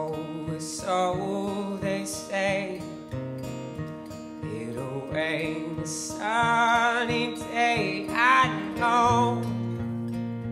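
Live male vocal singing over a strummed acoustic guitar, the voice held with vibrato on sustained notes, taken straight from the mixing board.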